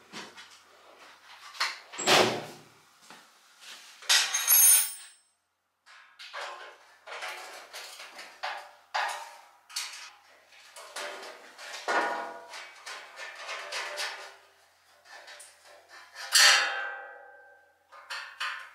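Sheet-steel panels and tools knocking and clattering on a steel workbench as a bandsaw stand is screwed together. Several sharper metallic clanks ring briefly: about two seconds in, about four and a half seconds in, and a little before the end.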